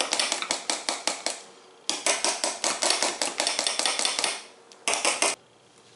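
A utensil beating and stirring cake batter in a bowl to mix in food colouring, clinking rapidly against the bowl at about seven strokes a second. It comes in three bouts, the last one short, with brief pauses between.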